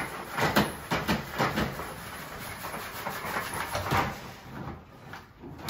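Dirt and play sand pouring and sliding out of a plastic bucket tipped into a glass terrarium. Repeated knocks and scrapes come from the bucket as the clinging dirt is worked loose.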